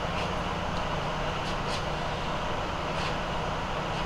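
Steady drone of an idling vehicle engine with a low hum and hiss, and a few faint clicks.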